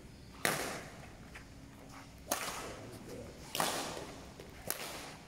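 Badminton rackets striking a shuttlecock during a rally: four sharp cracks, one to two seconds apart, each ringing on in the echo of a large hall.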